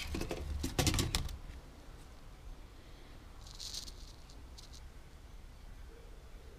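Handling noise from a removed clutch disc and pressure plate moved by a gloved hand on wooden boards: a quick run of metallic rattling clicks in the first second or so, then a short rustle a few seconds in and a few light clicks.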